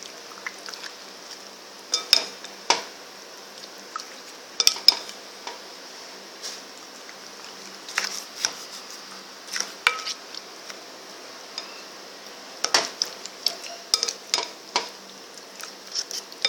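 Irregular clinks and knocks against a mixing bowl as raw chicken pieces are turned over in their marinade, some strokes sharper and louder than others.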